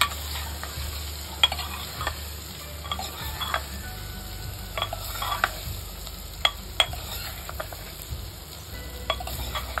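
Steel ladle stirring boiled potato pieces in hot spiced oil in a pressure cooker: a steady sizzle, with sharp clinks and scrapes of the ladle against the cooker's sides, a few of them loud.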